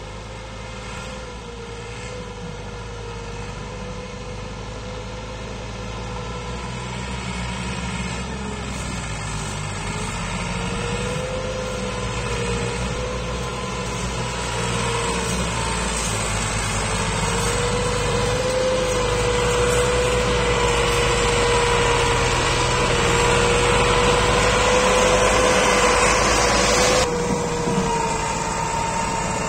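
Massey Ferguson 260 tractor's diesel engine working hard as it hauls a heavily loaded trolley, growing steadily louder as it approaches, with a whine over the engine note that wavers slightly in pitch. Near the end the sound drops abruptly to a quieter, even engine note.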